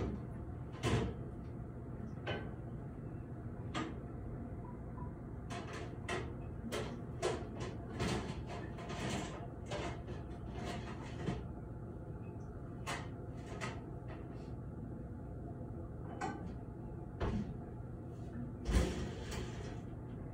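A steady low hum with scattered knocks and clicks over it, some like a door or cupboard closing. The loudest is a single thump near the end.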